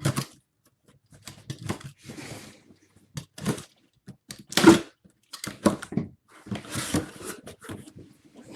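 Cardboard packaging being opened and handled by hand: tearing and rustling with scattered knocks, and one louder thump about halfway through.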